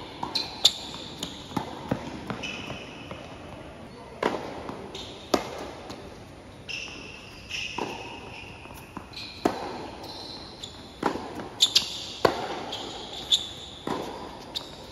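Tennis ball being struck by rackets and bouncing on a hard court, a series of sharp, irregular pops, with short high squeals of sneakers on the court surface between them.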